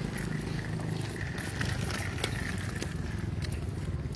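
Small plastic stroller wheels rolling and rattling over asphalt, with scattered clicks, over a steady low hum.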